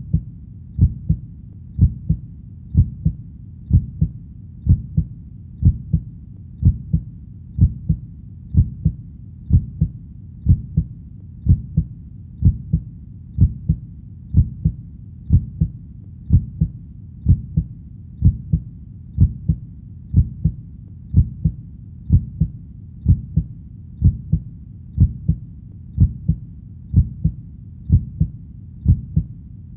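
Heartbeat sound: a steady lub-dub of paired low thumps, about one beat a second (roughly 60 beats a minute), keeping an even rhythm.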